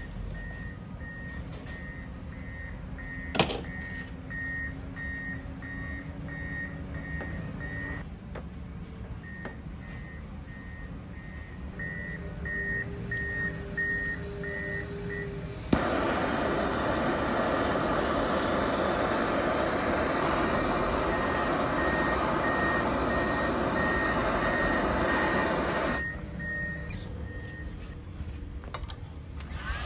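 A hand-held gas torch lit about halfway through, giving a loud steady hiss for about ten seconds and then shut off, heating a terminal lug to solder a cable end. Before it, a high short beep repeats about twice a second, with one sharp clank.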